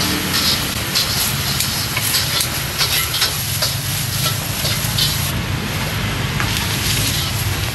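Street ambience with a steady low traffic rumble, over which come many light clicks and rustles of plastic gloves and a plastic takeaway box being handled as food is packed.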